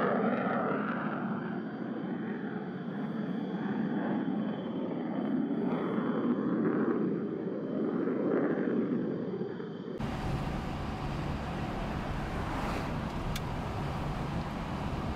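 Jet airliner taking off, its engines a rush of noise that swells and eases under a steady high whine. About ten seconds in this cuts to low road and tyre noise heard from inside a moving vehicle.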